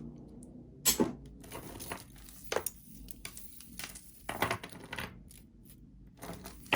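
Small pieces of costume jewelry, such as earrings and beads, clinking and clattering as they are handled and set down on a table. There are a few scattered sharp clinks, the loudest about a second in.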